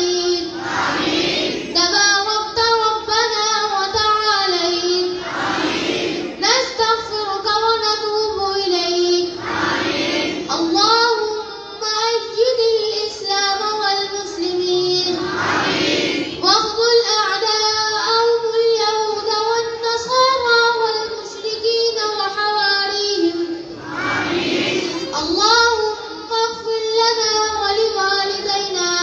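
A child singing a slow melody in long held phrases, with short breaks between the phrases.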